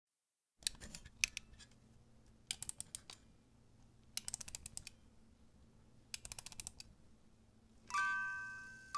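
Four short bursts of rapid mechanical clicking, about two seconds apart. A melody of high bell-like notes starts about a second before the end.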